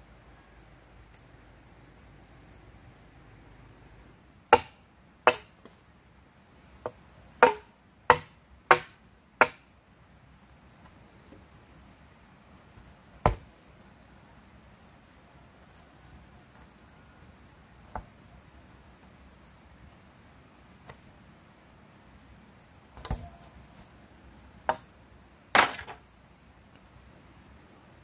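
Sharp tool blows on bamboo: a run of six chops between about four and ten seconds in, then a few scattered ones. A steady high-pitched insect drone runs under them.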